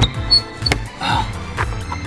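Background music with a single sharp click about two-thirds of a second in, as the helicopter's cargo compartment door is unlatched and opened.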